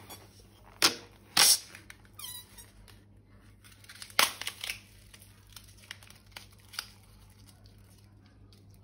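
Balloons and slime-making supplies being handled: a few sharp snaps and clicks, loudest about one and one and a half seconds in and again around four seconds, with a brief squeak in between and faint ticks after.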